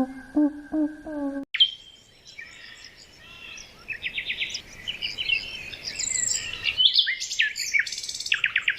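Birds chirping and singing, with many quick overlapping calls and trills. A short, lower pitched animal call comes first and gives way to the birds suddenly about a second and a half in.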